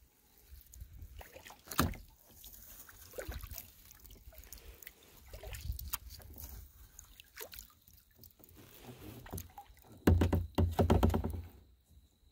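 Sea kayak paddle strokes in calm water: the blades dipping and dripping, with scattered small knocks and one sharper knock about two seconds in. Near the end comes a loud, rough rattling burst lasting about a second and a half.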